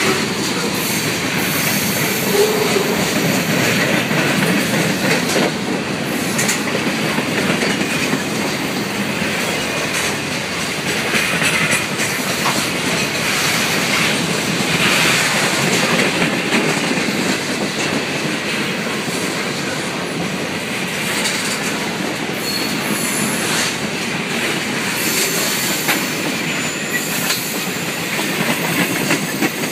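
Freight train cars rolling past: steady wheel-on-rail noise with clacks from wheels crossing rail joints and some high wheel squeal now and then.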